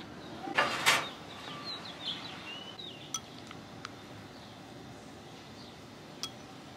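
A bird chirping a few short calls, with a brief loud burst of noise about a second in and a few sharp light clicks, the clink of dishes being handled.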